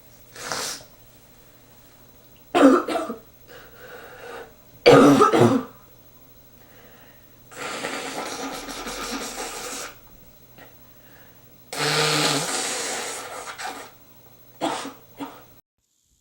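A man sneezing twice, loud and sudden, then blowing his nose hard twice, each blow lasting about two seconds, with two short snorts near the end.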